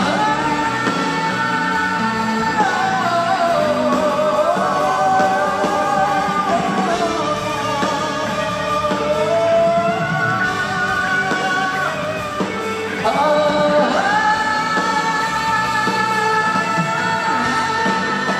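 Male voices singing a slow rock ballad live with a full band, with long held high notes that glide down between phrases.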